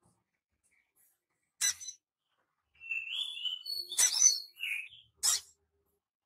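Caged sunbird (sogon), a patchy-plumaged young male still learning its song, giving short sharp 'cit' chirps. One chirp comes near two seconds in, then a run of chirps and short calls follows from about three seconds in to five and a half.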